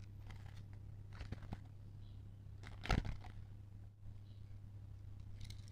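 Faint handling noise of a plastic toy Progrise Key and its cardboard box: light rustles and small clicks, with one sharper knock about three seconds in.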